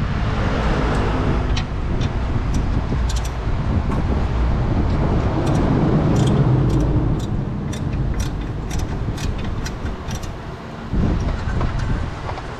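A steady low vehicle rumble that swells about halfway through and eases later, with scattered light metallic clinks.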